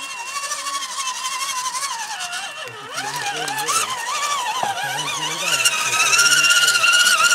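Electric motor and gears of an RC scale crawler truck whining as it drives over muddy ground, the pitch rising and falling with the throttle. It gets louder near the end as the truck comes up close.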